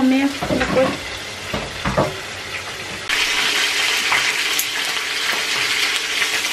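Chicken pieces sizzling in hot oil in a frying pan, with a few knocks early on; the sizzle turns louder and denser about three seconds in as the pieces are moved with tongs.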